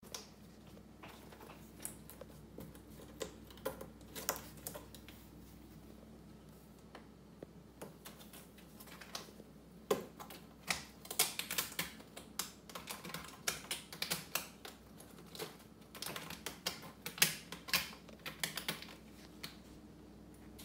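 Irregular light clicks and scratches of cats' claws on a corrugated cardboard scratcher, as a Norwegian Forest Cat on top and a black-and-white cat inside it paw and bat at each other. The clicks are scattered at first and come in quick clusters from about ten seconds in until near the end.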